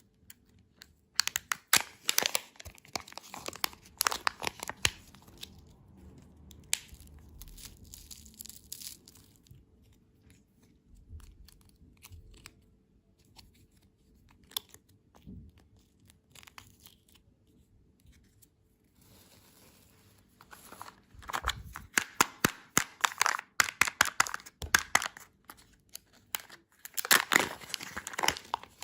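Candy wrappers being crinkled and torn open by hand, a dense crackle of many small snaps. There is a flurry in the first few seconds, only faint handling through the middle, then steady heavy crinkling over the last third.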